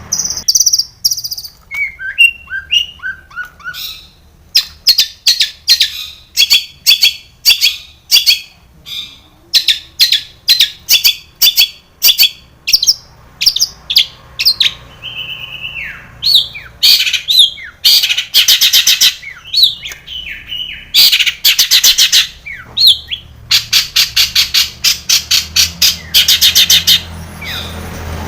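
Long-tailed shrike (cendet) in full song: a long run of sharp, harsh chattering notes, two or three a second, broken by bursts of fast, dense trills, with mimicked phrases of other birds woven in. A faint steady low hum runs underneath.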